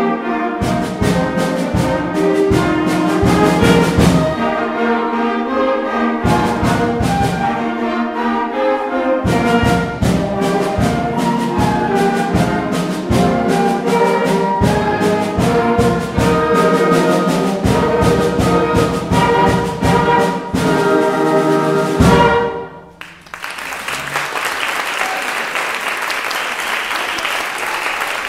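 School concert band of woodwinds, brass and drum kit playing a piece over a steady drum beat, ending on a loud final chord about 22 seconds in. Audience applause follows.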